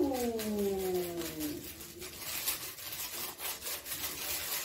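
A woman's voice gives one drawn-out falling vocal sound. Then comes a run of quick rustling and rubbing strokes as a gelatin powder packet is torn open and worked over a glass bowl.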